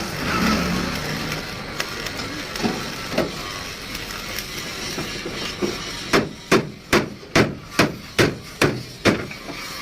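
Hammer blows in a bus repair workshop: a few scattered knocks over general shop noise, then, about six seconds in, a steady run of hammering at about two and a half strikes a second.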